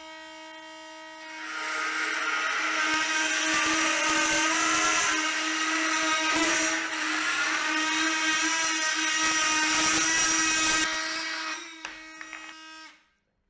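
Metabo MT 18 LTX BL Q SL cordless brushless oscillating multi-tool running with a steady buzzing hum. After about a second and a half its blade bites into material, adding a loud rough cutting noise for around nine seconds. Then it runs free again with a few clicks and shuts off near the end.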